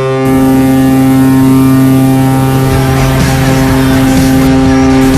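Vegas Golden Knights arena goal horn blaring as one long, steady, loud pitched blast. A wash of noise builds beneath it about three seconds in.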